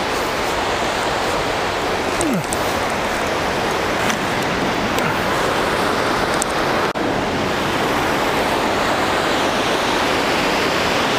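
Steady rush of river water tumbling over rocks in shallow rapids below a dam.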